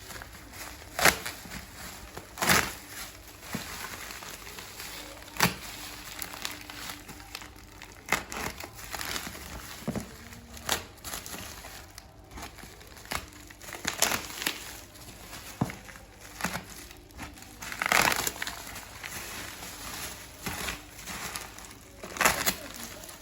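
Espresso-machine packaging being unpacked: irregular crinkling and rustling of plastic and packing material, with scattered sharp knocks and taps of cardboard and parts being handled.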